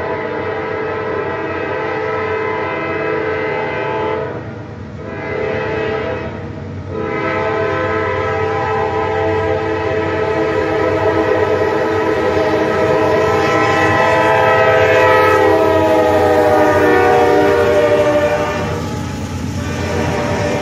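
A Norfolk Southern freight locomotive's multi-chime air horn sounding as the train approaches: a blast, a shorter blast, then one long held blast that drops slightly in pitch as the locomotive draws level, over the rumble of the train. The horn stops near the end and the locomotives' engine and wheel noise carry on.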